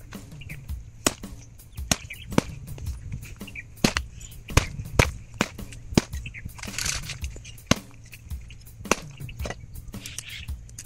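Sharp, irregular knocks and taps, a few each second, some much louder than others.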